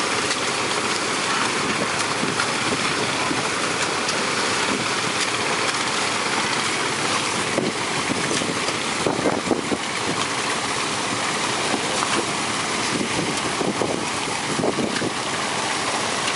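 Steady rush of water and sand slurry running down a tin-mining sluice box, over the running of an engine-driven water pump. Bursts of hoe scraping and splashing in the wet sand come about eight seconds in and again near the end.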